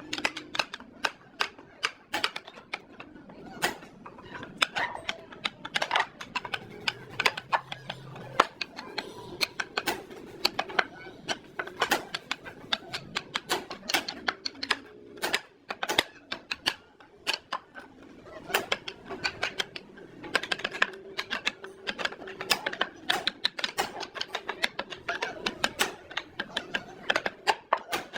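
Irregular quick taps and knocks, several a second, of hand tools working wood.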